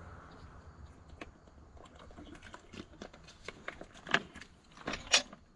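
Faint handling noise: scattered light clicks and knocks, with two sharper clicks about four and five seconds in.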